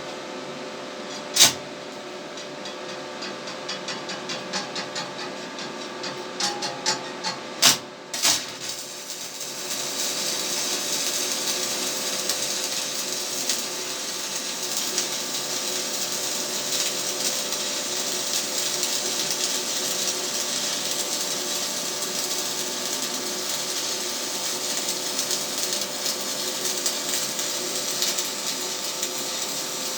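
Stick (arc) welding with a welding rod: the rod is scratched and tapped on the plate to strike the arc, giving sharp clicks and crackles for the first eight seconds or so, then the arc catches and burns with a steady sizzling crackle.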